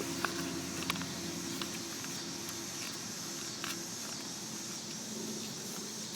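A sheet of paper being folded and creased by hand: a few light crinkles and taps over a steady low hum.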